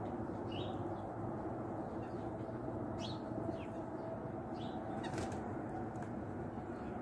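Several short, high bird chirps over a steady low rumble, and about five seconds in a brief flutter of wings as a white-breasted nuthatch lands.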